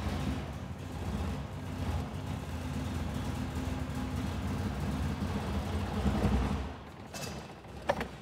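Carbureted classic Lada four-cylinder, firing off glow plugs in place of spark plugs, running and then stalling about seven seconds in: with the choke pushed in the mixture is too lean and too short of fuel to keep it going. A single sharp click near the end.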